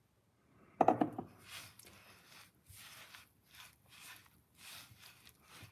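A hand squeezing and mixing crumbly, damp festival dough in a glass dish: soft rustling squishes about twice a second. About a second in there is a brief sound of a voice, the loudest moment.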